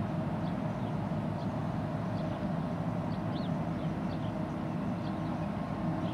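Low, steady drone of a large container ship's engines as it passes close by, with faint high chirps now and then.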